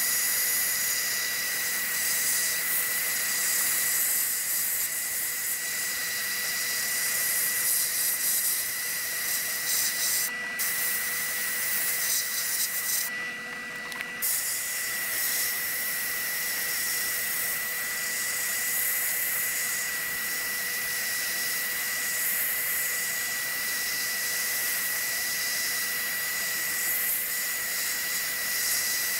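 Sandblast cabinet gun firing aluminum oxide grit against a steel part, a steady hiss of air and abrasive stripping old paint and rust, with a thin high whistle running under it. The blast cuts out briefly about ten seconds in and again for about a second at thirteen seconds.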